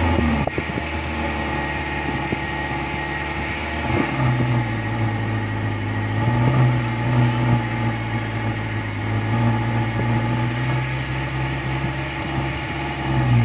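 Car exhaust running right at the microphone: the engine idles, then about four seconds in the revs rise and are held higher, wavering a little, before dropping back at the very end.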